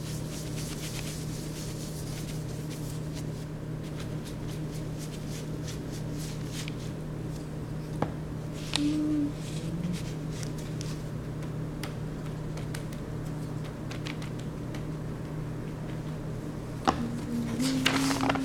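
Light scratching of a paintbrush working paint, with scattered soft taps and a sharp click about halfway through, over a steady electrical hum. Short humming tones come in near the end.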